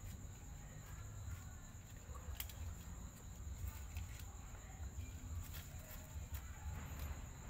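Quiet background: a low, uneven rumble under a steady high-pitched whine, with a few faint clicks about two and a half and four seconds in.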